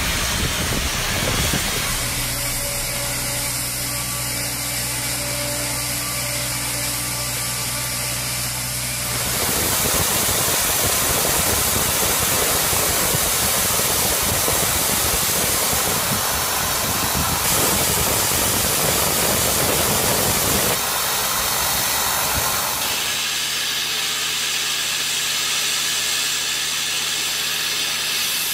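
High-pressure water jets blasting a ship's hull to strip barnacles and coatings: a loud, steady hiss, over an engine hum in some stretches. The sound changes abruptly several times.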